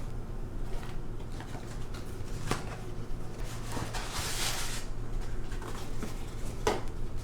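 Handling of a small wooden box and paper coffee filters: a few light wooden knocks and taps, with a brief papery rustle about four seconds in as the stack of filters slides into the box.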